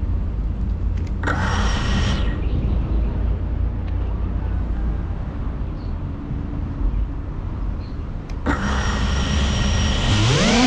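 FPV drone motors spinning at idle on the ground, with a steady low rumble from the prop wash on the onboard camera's microphone. There is a short throttle blip about a second in. Near the end the motors spool up into a sharply rising whine as the drone throttles up to take off.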